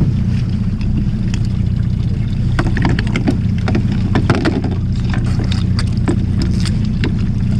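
Boat engine running steadily with a low, even drone, with scattered clicks and knocks from handling the catch and tackle on the deck.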